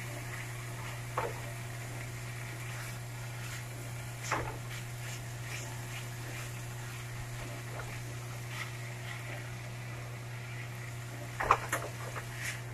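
Plastic slotted spatula stirring chicken and peppers in a nonstick frying pan over a faint sizzle: a few scattered scrapes and knocks against the pan, the loudest a quick cluster near the end. A steady low hum runs underneath.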